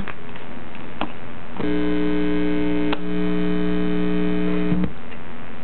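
A click as the XM Pioneer Inno radio is set into its cradle. A steady mains hum then buzzes through the connected Bose Companion 2 speakers for about three seconds and cuts off with a click.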